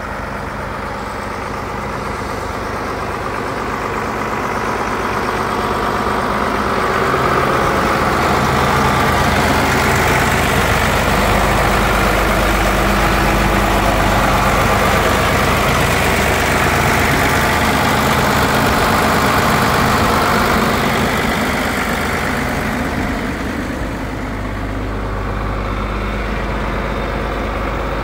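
A 1988 John Deere 4450 tractor's six-cylinder turbo diesel engine idling steadily, louder through the middle stretch.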